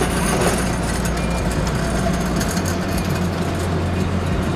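Steady car cabin noise from a running vehicle: a constant low engine hum under a broad even rush, its low pitch shifting about halfway through.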